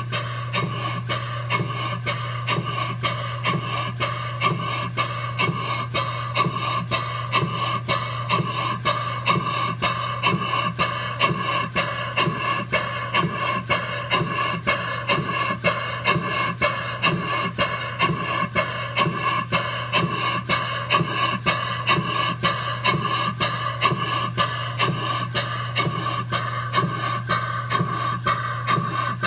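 Model Gothic beam engine running at a steady speed, giving an even beat of about two to three strokes a second over a steady low hum.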